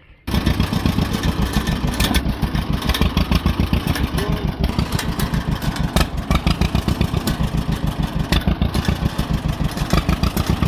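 1952 John Deere MT's two-cylinder engine running with a rapid, even pulsing beat. The sound comes in abruptly about a third of a second in.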